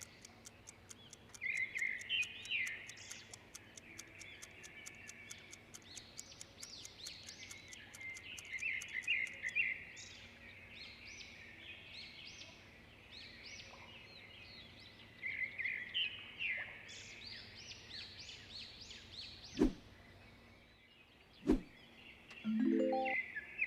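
Birds chirping over faint hiss, in bursts that recur about every seven seconds. A fine high ticking runs under the first part. Two sharp clicks come about two seconds apart near the end.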